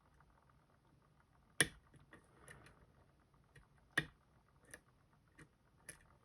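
Small metal clicks and ticks of a lock pick working the pin stacks of a Robur safety deposit box lock, lifting the gin drivers toward the milling. Two sharper clicks about a second and a half and four seconds in, with fainter ticks between and after.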